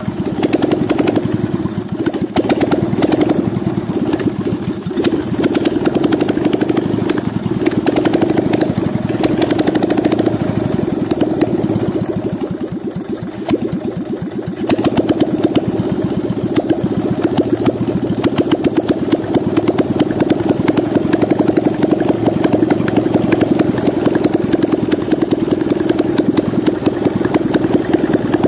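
Fiat 126p 650 cc air-cooled two-cylinder engine running steadily with its timing cover off and a worn, stretched timing chain turning. It drops a little quieter about halfway through, then picks up again.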